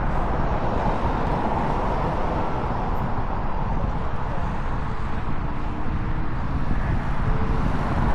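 Mazda MX-5 driving at road speed, a steady mix of engine, tyre and wind noise heard from inside the car.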